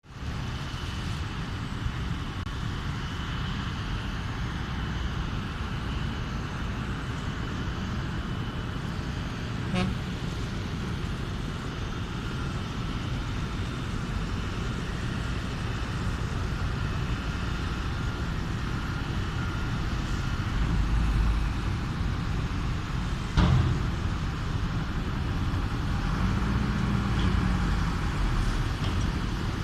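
Steady low rumble of traffic noise, with a short sharp click about ten seconds in and a louder knock a little past twenty seconds.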